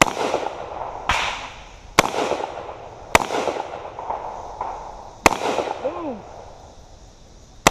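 Carbine fired in single aimed shots, six in all, each followed by a rolling echo. The first four come about a second apart, then there are pauses of about two seconds before the fifth and sixth.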